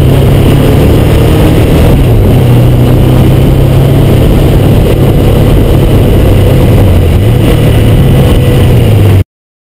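Honda CBX motorcycle engine running steadily, its pitch shifting a little now and then, cutting off abruptly near the end.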